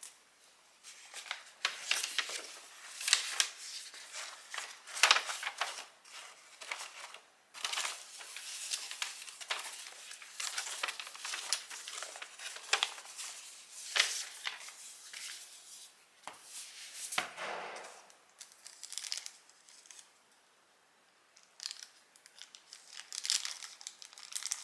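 Packaging being handled and unwrapped: irregular crinkling and rustling, with a light knock partway through and a short lull near the end.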